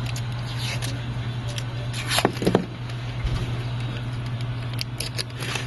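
Kapton tape being pulled off the roll and pressed down, with short crackles and rustles that are loudest about two seconds in, over a steady low hum.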